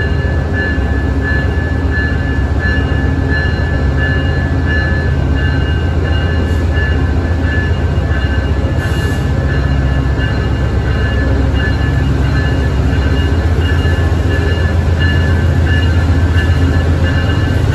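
GE P42DC diesel locomotive's V16 engine running as it pulls slowly along the platform. A steady low rumble that grows louder near the end as it comes closer, with a steady high whine over it.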